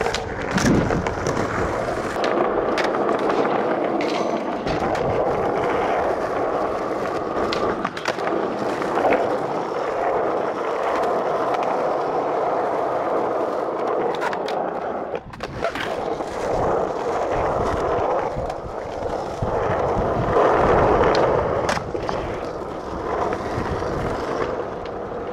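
Skateboard wheels rolling over the skatepark ground, a steady gritty rumble, broken several times by sharp clacks of the board popping and landing.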